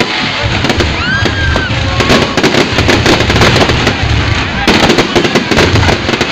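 Aerial fireworks display: rapid, overlapping bangs and crackles of bursting shells, loud and continuous, with a brief whistle about a second in and the crackling growing denser about five seconds in.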